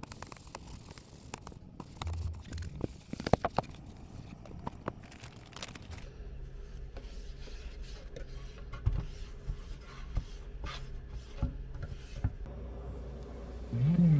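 Close-up handling noises: rubbing and scraping with scattered light clicks and taps over a low room hum.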